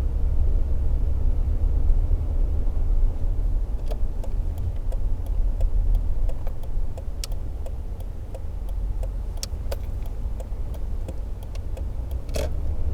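Toyota Tacoma pickup driving, a steady low rumble of engine and road noise. From about four seconds in, scattered light clicks and rattles come through, with a sharper click near the end.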